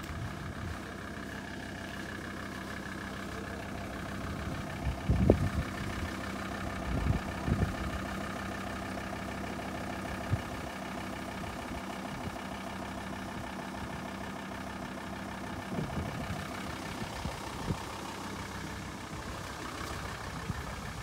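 A vehicle engine running steadily, with a few knocks or thumps about five to eight seconds in and again later.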